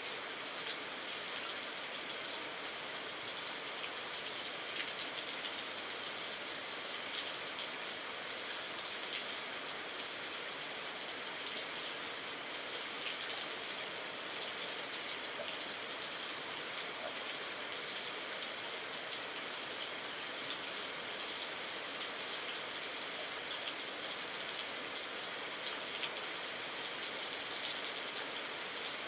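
Steady rain falling, an even hiss with scattered sharper drop hits, two of them louder in the second half.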